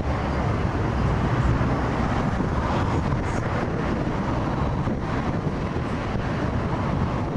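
Distant double-headed GWR steam locomotives, King class 6024 and Castle class 5029, working their train toward the bridge: a steady low noise, mixed with wind buffeting the microphone.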